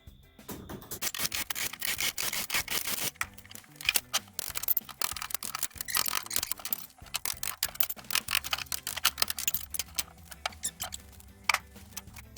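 Background music over rapid, dense clicking and rattling.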